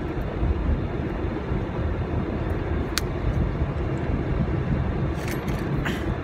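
Steady low rumble of a car heard from inside the cabin while driving, with a single sharp click about three seconds in.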